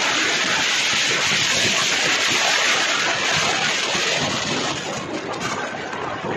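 Steady rush of wind and road noise on a moving motorcycle, with the wind hitting the microphone. It eases slightly near the end.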